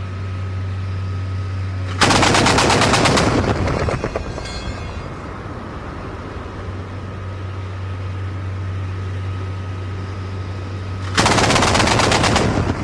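Twin 35mm Oerlikon KDA autocannons of a Type 87 self-propelled anti-aircraft gun firing two rapid bursts of about two seconds each, one about two seconds in and one near the end. Between the bursts the vehicle's engine runs with a steady low hum.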